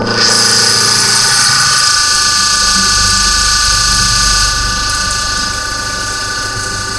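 CNC milling machine cutting carbon steel with a 1/2-inch end mill: a steady whine of several tones with a bright, hissing cutting noise that sets in at the start and eases a little about four and a half seconds in.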